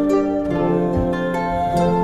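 Background music: a gentle, calm piece led by plucked, harp-like notes.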